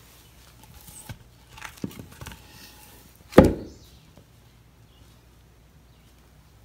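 Chunks of birch log being handled on a concrete floor: a few light knocks and scrapes, then one heavy wooden thud about three and a half seconds in as a block is set down.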